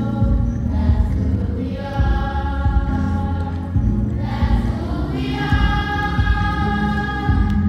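Choir singing a slow hymn for the entrance procession of a Mass, in long held notes that change in phrases of about two seconds.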